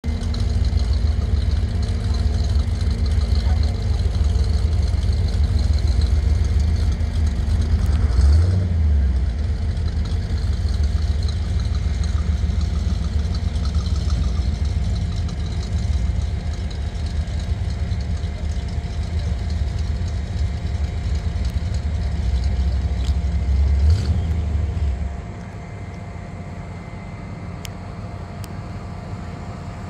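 Yellow C3 Corvette's V8 exhaust rumbling low at idle as the car rolls slowly by, with two short louder swells about eight and twenty-four seconds in. The rumble drops away at about twenty-five seconds.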